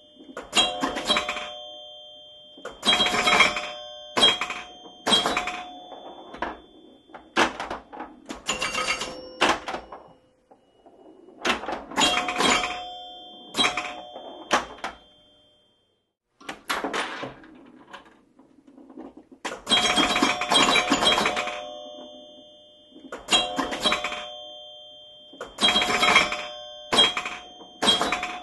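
Pinball machine in play: irregular flurries of sharp mechanical knocks and clicks, with bells ringing and dying away after each flurry as it scores. There is a short lull about halfway through.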